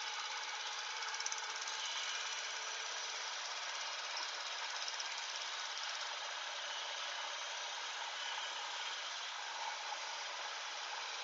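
Shopsmith running at slow speed, its conical sanding disc grinding the edge of a steel knife blade held in a sliding jig: a steady grinding of abrasive on steel over the machine's running sound.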